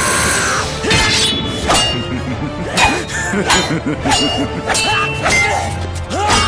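Steel swords clashing: about seven sharp metallic clangs in quick exchanges, each ringing briefly, over dramatic background music.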